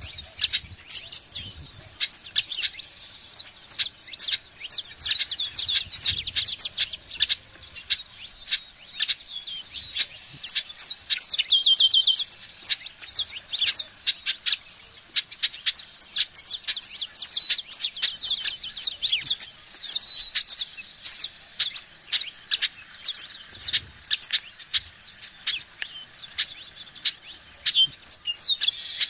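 A group of small birds chirping continuously, with many short, high chirps overlapping in quick succession.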